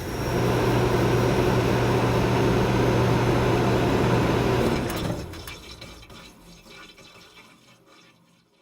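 Rushing water with a low hum under it. It holds steady for about five seconds, then fades away over about three seconds.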